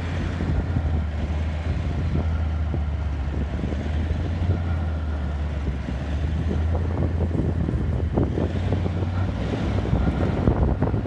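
A vehicle's engine running with a steady low rumble as it drives along a gravel track, with wind buffeting the microphone. About nine seconds in, the rumble drops away and short crackles and clicks take over.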